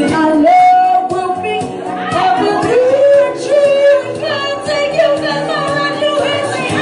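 Karaoke singing: a voice singing into a microphone over a music backing track, holding several long notes.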